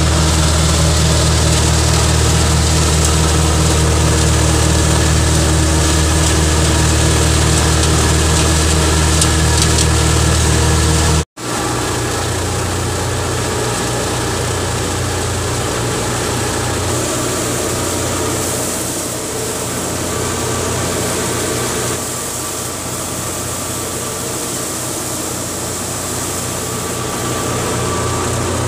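Old Fiat 480 tractor's diesel engine driving a thresher through its power take-off, running steadily under load while pearl millet heads are fed in. There is a brief break about eleven seconds in, after which the running carries on with a lighter, less deep tone.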